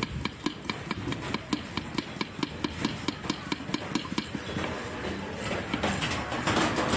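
Long kitchen knife slicing a red onion on a wooden board: quick, even knocks of the blade against the wood, about four or five a second. In the last couple of seconds the strokes blur into a rougher, louder scraping noise.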